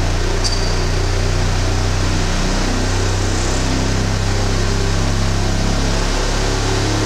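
Electrodynamic vibration shaker running a swept-sine test on a spacecraft structural model: a steady low hum with shifting tones above it and a broad rush of noise, the low hum filling out a little a couple of seconds in.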